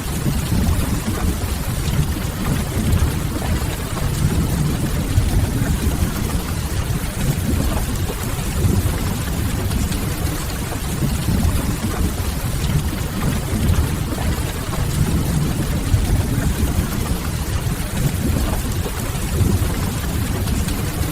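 Steady rain, a continuous even hiss with a heavy low rumble underneath, from a looped rain-and-fireplace ambience track.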